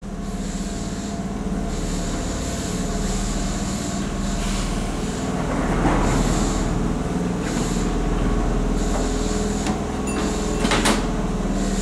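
Keihan 2200-series electric train standing at the platform with its on-board equipment humming steadily. A hiss comes and goes over the hum, and a couple of sharp knocks sound near the end.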